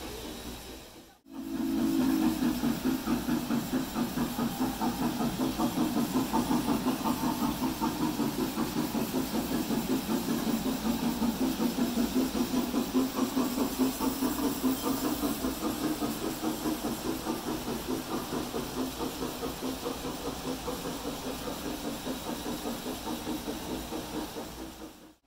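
G-scale model train running on the layout: a steady mechanical hum with a quick, regular pulsing, roughly three beats a second.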